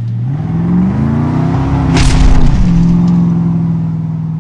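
A 2016 Jeep Wrangler JK's 3.6-litre V6 revving through a MagnaFlow Competition stainless cat-back exhaust with a high-flow muffler. It climbs steadily from idle to a peak about two seconds in, with a sharp crack at the top. It then drops back and holds at a steady, raised engine speed, loud and louder than the factory exhaust.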